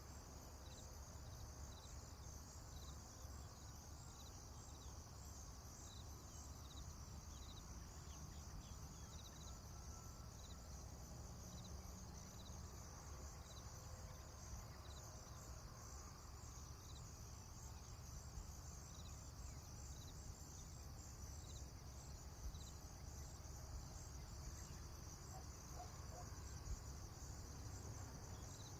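Faint rural morning ambience: a steady high chorus of insects chirping, with a short chirp repeating about once a second and a low rumble underneath.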